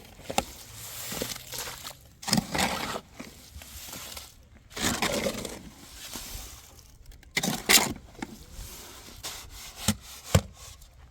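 Scraping and knocking from hand work on building materials: three separate scrapes, each about half a second to a second long, then a few sharp knocks near the end.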